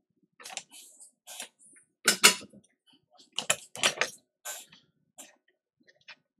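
A run of short, irregular scraping and rattling handling sounds, about a dozen, loudest around two and four seconds in.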